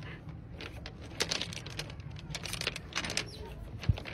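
Loose rounded pebbles clicking and clattering against each other as an otter wriggles and rolls on its back on them, with one dull knock near the end.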